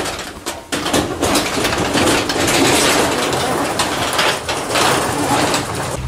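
Sectional garage door being pushed up by hand along its tracks: a continuous rolling, scraping noise with a short break about two-thirds of a second in. The door runs free because the opener's emergency release has disconnected it from the trolley.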